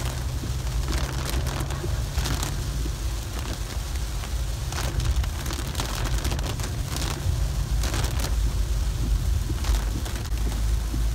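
Inside a car driving in heavy rain: a steady low rumble of engine and road noise, with rain on the car and irregular short hissing swells every second or two.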